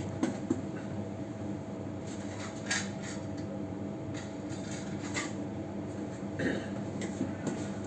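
A steady machine hum with a faint constant tone, with a few light clicks and taps of a 6-pin power socket and small parts being handled against a hash board.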